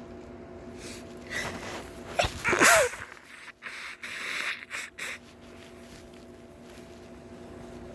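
A person sneezing once: a breathy build-up, then one loud voiced sneeze about two and a half seconds in, followed by a few seconds of breathy exhaling.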